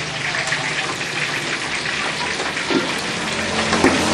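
Hot oil sizzling and crackling in a wok as catfish deep-fries, a dense, steady spatter with a faint low hum underneath.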